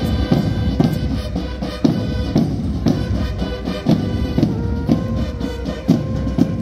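March music: a steady drum beat about twice a second under held melody notes.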